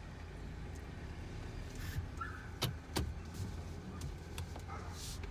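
Low, steady rumble of a car heard from inside its cabin as it moves slowly through a parking lot. A few sharp clicks come about two and a half and three seconds in.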